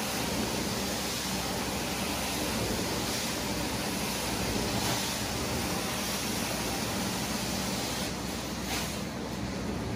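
Carpet-cleaning extraction machine running: a steady rushing hiss of suction and spray over a low motor hum, swelling briefly a few times.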